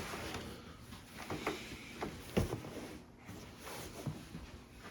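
Soft rustling and light knocks of a patient shifting and lying down on a padded treatment table, with one sharper knock about two and a half seconds in.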